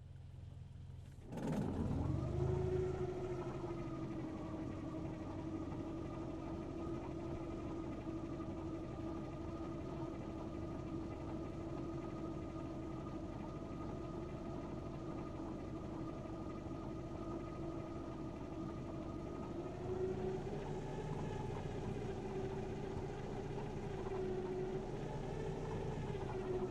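Hovercraft engine starting: a click, then the engine catches about a second and a half in and settles into a steady idle. About twenty seconds in it picks up a little in revs, then eases back down near the end.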